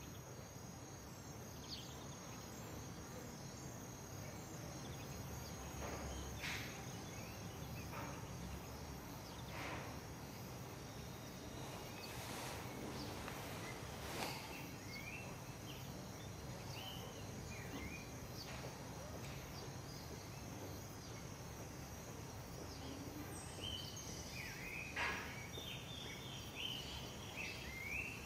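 Faint rainforest ambience: a steady high-pitched insect drone over a soft hiss, with short chirping bird calls that come thicker in the second half and a few sharp clicks.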